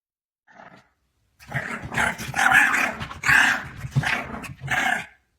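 A dog growling in a rough, drawn-out grumble lasting about four seconds, swelling and easing several times.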